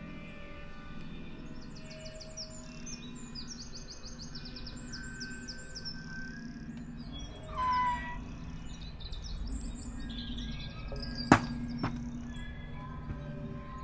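Soundscape of birdsong chirping over steady, ringing tones from hand-made instruments. A louder falling whistle comes about eight seconds in, and a single sharp click about eleven seconds in is the loudest sound.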